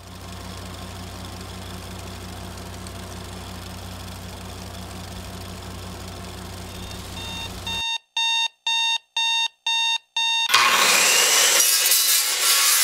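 A steady low hum, then an alarm clock beeping about six times in quick, even succession, cut off by a loud harsh rush of noise.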